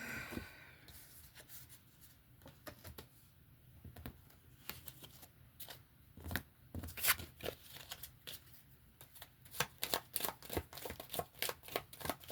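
Oracle card deck being shuffled by hand: a run of soft card flicks and clicks, sparse at first, then quicker and denser through the second half.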